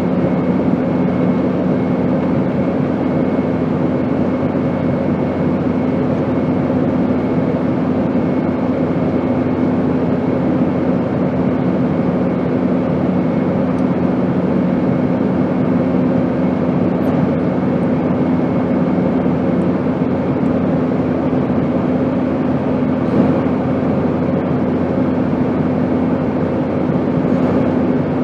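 Airplane noise: a steady, even rushing drone with a constant low hum running through it, one of its lower tones fading out about twenty seconds in.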